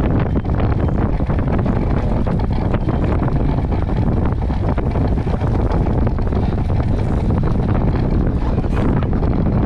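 Wind buffeting a boat-mounted microphone, mixed with the rush of water, on a Moth foiling dinghy sailing at about 40 km/h. A loud, steady rush that flutters constantly.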